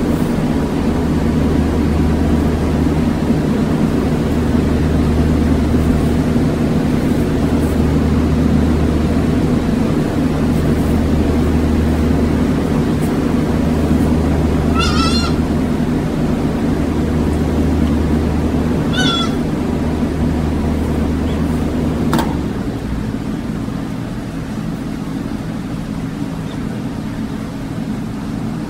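A newborn goat kid bleats twice, short high calls about four seconds apart. Under it runs a loud, steady low mechanical hum, which drops with a click about 22 seconds in.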